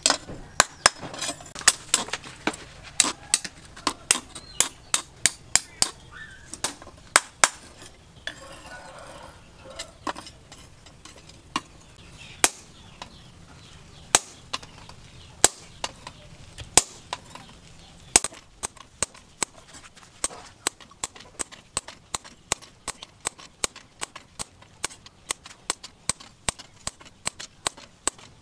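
Hand hammer striking a red-hot steel bar held in tongs on a small steel post anvil: sharp metallic blows about two a second. Between roughly a third and two-thirds of the way in the blows come singly, a second or more apart, then a quicker run of lighter strikes follows to the end.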